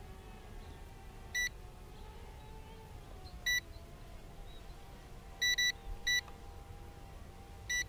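Short electronic beeps from the drone's control gear, six in all and one to two seconds apart, two of them close together. Under them runs the faint, slightly wavering hum of the drone's motors as it climbs overhead.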